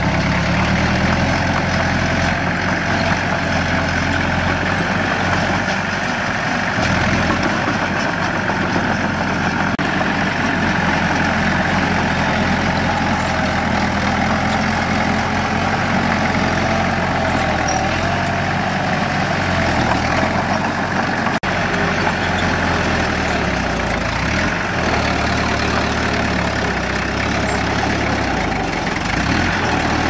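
Diesel engine of earthmoving machinery running steadily, its engine speed shifting up and down a few times.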